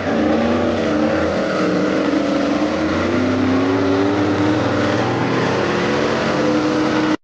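Pickup truck engine held at high revs during a burnout, its pitch wavering, over the loud hiss of the rear tyres spinning against the pavement.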